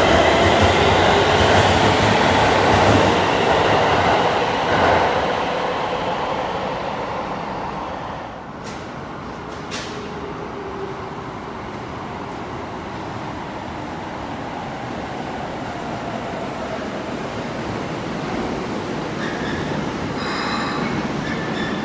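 Keikyu 1000-series train with a Siemens IGBT-VVVF inverter pulling out of an underground station: the inverter's layered whine climbs in pitch over rumbling wheels and rail, then fades as the train leaves. A couple of sharp clicks come about halfway through, and a few brief tones near the end.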